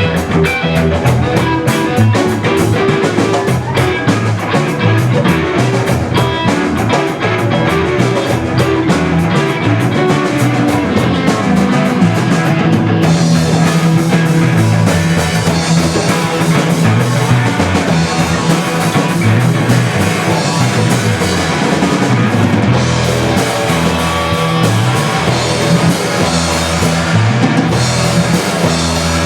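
Rock music: electric guitar over a drum kit. The cymbal-heavy drumming is busy in the first part, and the texture shifts a little under halfway through.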